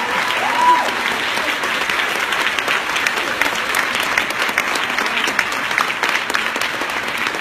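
Audience applauding steadily at the close of a performance, a dense patter of many hands clapping. Just under a second in, a brief whoop rises and falls above the clapping.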